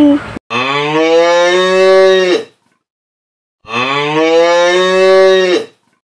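A cow mooing twice. Each moo is long, about two seconds, and drops away at the end, with about a second of silence between the two.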